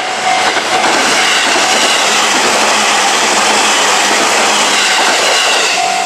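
Izuhakone Railway Sunzu Line electric train passing over the level crossing: a loud, steady rush of wheels on rail. It drowns out the crossing's ringing warning bell, which comes through only at the very start and end.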